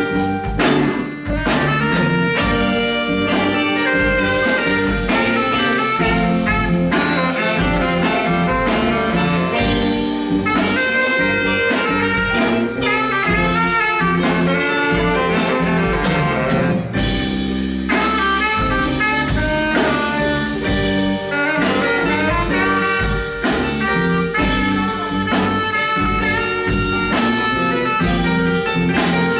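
Live blues band playing an instrumental break with no vocals: tenor saxophone over electric guitar, keyboard, bass and drums, with a steady drum beat.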